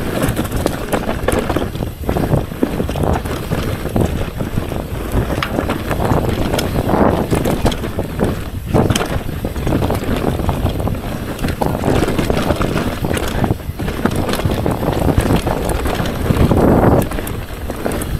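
Mountain bike riding fast down a dirt forest trail: wind buffeting the action camera's microphone, with the tyres rolling over dirt and roots and the bike knocking and rattling over the bumps.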